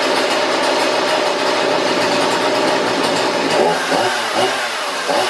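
Husqvarna 235 chainsaw's small two-stroke engine running steadily, then revved up and back down a few times in the last couple of seconds, while its carburetor is being tuned by ear.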